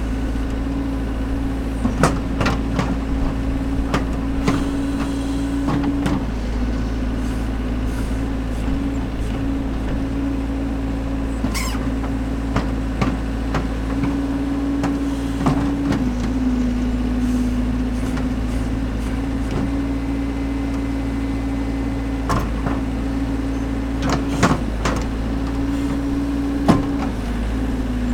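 Caterpillar backhoe loader's diesel engine running steadily while the backhoe arm digs, its note dipping briefly a few times, with scattered sharp clanks.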